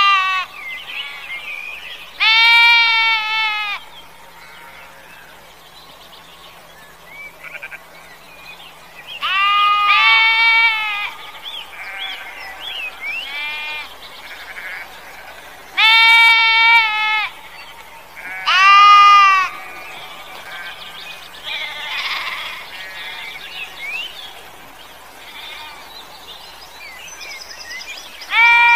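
Sheep bleating: about five loud, drawn-out bleats of a second or two each, with fainter calls in between.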